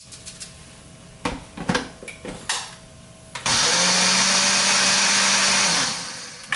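A countertop blender jar of rice grains knocks onto its base a few times. Then the blender motor runs at full speed for about two and a half seconds, grinding the rice, and spins down.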